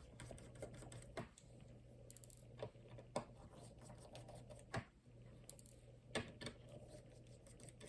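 Scattered faint clicks and taps of small repair tools against an iPhone's parts during disassembly, over a faint steady low hum.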